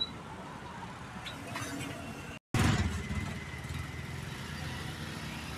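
Street traffic: motor vehicles running by in a busy street. The sound cuts out for an instant about two seconds in, and a louder, low engine rumble follows.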